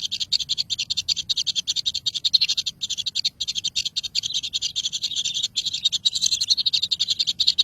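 Nestling birds calling: a continuous, high-pitched chatter of rapid cheeps.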